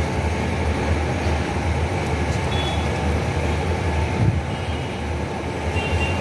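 Steady low drone of running machinery, with a short knock about four seconds in.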